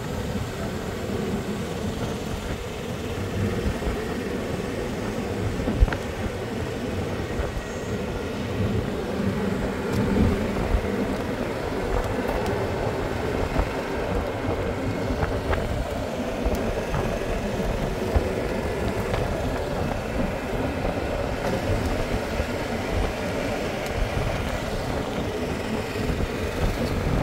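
Golf cart driving along a paved road: steady motor and tyre noise with wind on the microphone, and a sharp tick about six seconds in and another near eighteen seconds.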